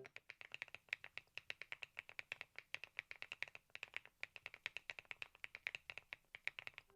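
Typing on the Thinkway TAUCHE.S 501 full-aluminium mechanical keyboard: a quick, steady run of faint key clacks, about nine keystrokes a second.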